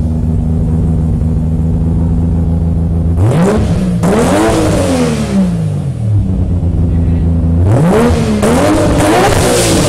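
Nissan Skyline GT-R R34's straight-six heard at the exhaust tip, idling steadily, then blipped: about three seconds in the revs climb, peak twice and drop back to idle. Near the end it is revved again, rising through a few quick peaks before falling away.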